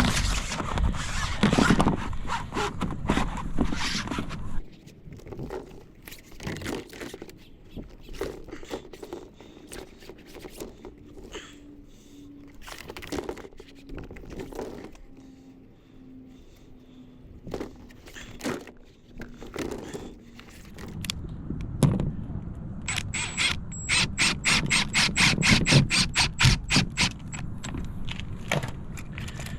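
Corrugated plastic roof panels being handled and scraped into place, with scattered knocks and clicks. Near the end comes a quick, regular run of sharp clicks, about four a second, for about five seconds.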